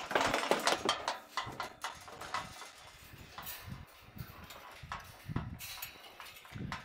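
A turkey scrambling about on wooden boards as it is let out of the weighing pen. A quick run of knocks and scrapes is loudest in the first second or so, then scattered thumps follow.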